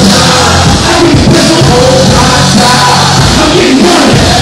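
Loud music with a voice singing over sustained bass notes.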